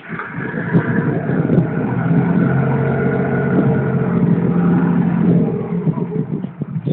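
Small ferry boat's engine revving up and holding a steady higher throttle for about five seconds, then easing off near the end, as the boat manoeuvres to dock.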